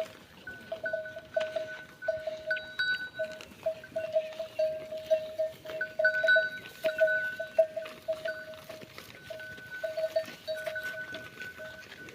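A neck bell on a dairy animal clanking over and over, a few short rings a second at the same two pitches, as the animal moves its head.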